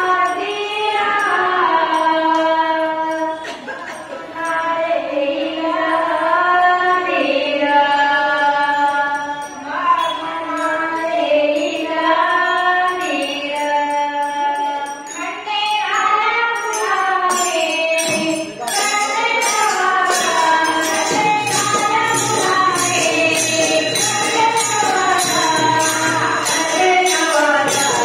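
Singing of a Marathi bharud devotional song to Khandoba, long held notes gliding up and down. About sixteen seconds in, a quick, steady jingling percussion beat starts up, and a drum joins a few seconds later.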